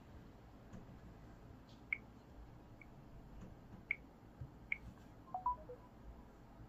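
Faint short beeps and light taps from a Samsung Galaxy S smartphone as its in-call touchscreen is touched, four high beeps spread over a few seconds, then a short run of falling tones near the end as the call is hung up.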